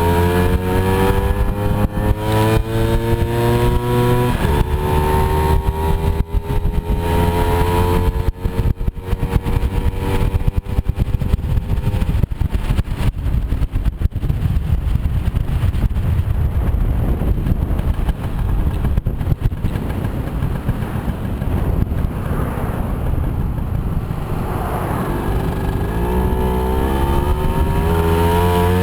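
Small moped scooter engine running under throttle on a ride, its pitch climbing over the first few seconds and again over the last few. Through the middle a rough rushing noise with scattered knocks covers the engine.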